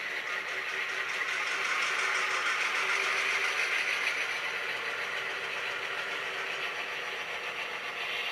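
Two HO-scale Athearn Genesis GP9 model locomotives running together, their Soundtraxx Tsunami and TCS WOW Diesel sound decoders playing EMD 567 diesel engine sound through small onboard speakers. Steady and even, swelling a little a couple of seconds in.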